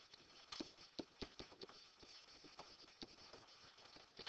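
Faint, irregular clicks and taps of a pen on an interactive whiteboard as a line of words is written.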